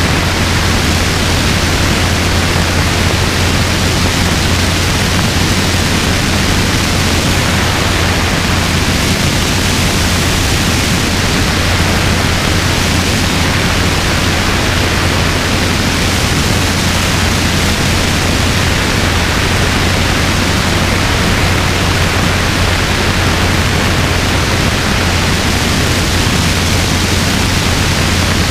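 Robinson R22 helicopter in steady flight: a constant low engine and rotor hum under a loud, even rushing noise of the airflow over the microphone.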